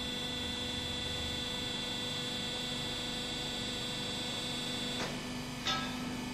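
Steady electrical hum with a faint high whine. There is a faint click about five seconds in and a brief short sound just after it.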